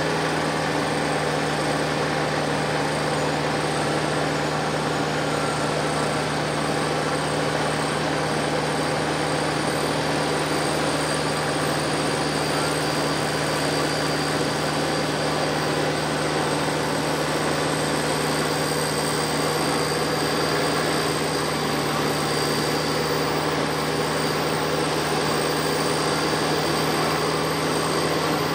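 Steady, unchanging mechanical drone of a running engine or motor.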